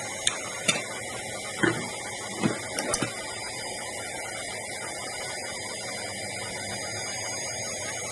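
Several short, light knocks and clicks in the first three seconds, over a steady hum and hiss.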